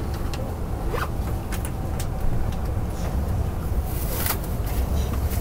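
Running noise heard inside the passenger cabin of an E5 series Shinkansen: a steady low rumble, with small irregular clicks and crackles scattered over it.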